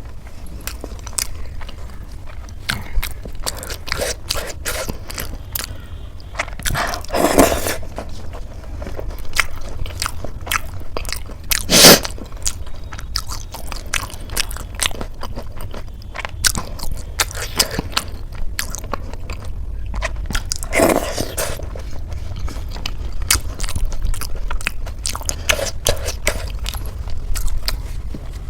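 Close-miked eating: a person biting and chewing crunchy food, with a run of small wet crackles and a few louder crunches, the loudest near the middle.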